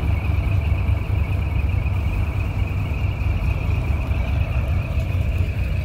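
Heavy diesel truck engine running as a decorated tractor-trailer rolls slowly, a deep steady rumble with a steady high-pitched whine over it.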